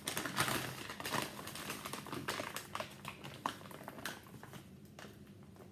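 Plastic tea pouch being folded and crinkled by hand: a rapid run of small crackles that thins out about three and a half seconds in.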